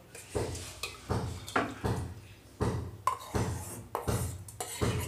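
Steel spoon scraping and knocking against a steel bowl as thick yogurt is scooped out into a steel pot, with a sharp tap about twice a second.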